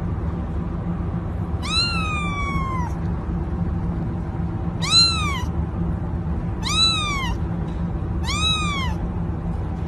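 Kitten meowing four times in high-pitched calls. The first is longer and trails down in pitch, and the next three are short and arched, over a steady low hum.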